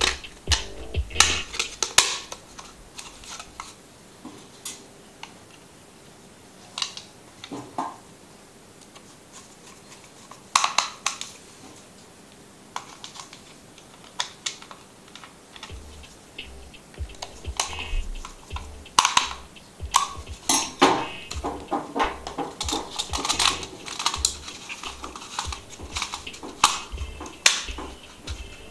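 Irregular clicks, taps and light clatter of small hard objects being handled. They come in clusters, busiest in the last third.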